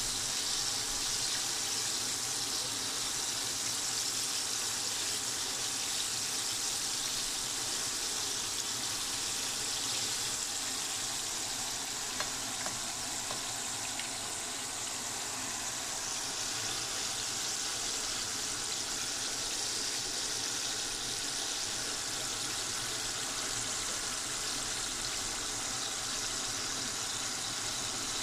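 Flour-coated chicken pieces deep-frying in hot oil in a pan, giving a steady sizzling hiss.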